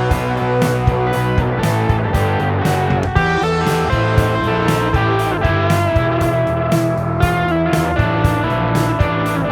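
Instrumental shoegaze-style rock: electric guitars played through a Line 6 Helix, with a steady beat of sharp drum hits.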